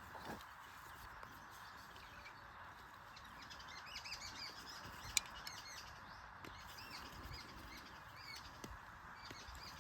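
Small birds chirping faintly in the background over a steady hiss, with a single sharp click about five seconds in.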